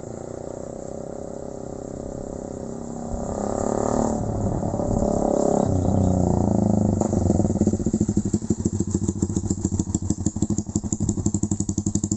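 Suzuki Raider 150 Fi's single-cylinder engine running through a Kou Mahachai aftermarket exhaust: steady at first, revved up about three seconds in and held loud for a few seconds, then settling into a fast, even pulsing from about eight seconds on.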